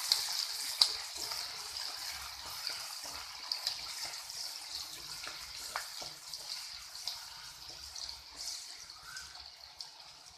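Crushed ginger and small onions sizzling in hot coconut oil, with scattered small crackles. The sizzle slowly dies down as the oil cools around them.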